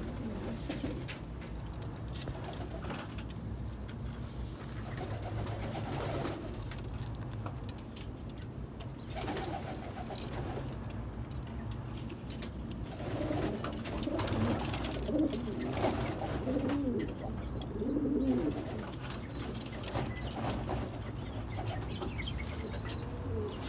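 Domestic pigeons cooing repeatedly, the coos loudest in the second half, over a steady low hum.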